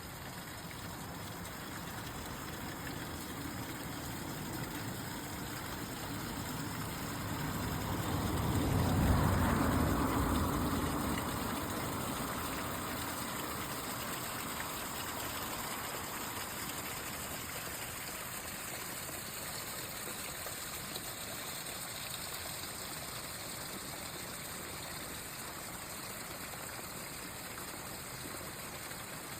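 Forest stream running steadily over and through tree roots. About a quarter of the way in, a low rumble swells, peaks, and fades again over a few seconds.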